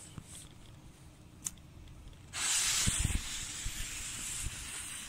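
Comet 'Horrorhaus' firework fountain catching about two seconds in, then spraying sparks with a steady loud hiss.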